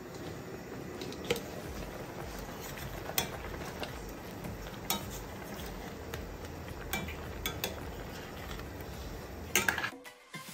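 A metal ladle stirring curry corn in coconut-milk gravy in a stainless steel pot, with sharp clinks of metal against the pot every second or two over a steady hiss.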